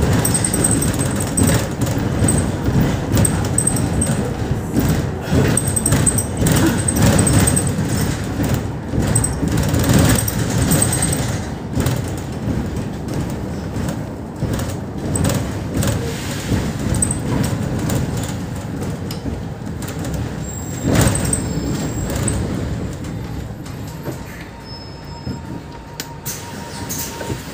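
Cabin noise of a Mercedes-Benz Citaro O530 city bus under way: engine and road rumble with many small knocks and rattles. It grows quieter over the last few seconds.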